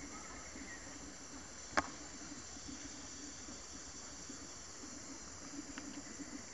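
Steady high-pitched insect chorus, with one sharp click a little under two seconds in.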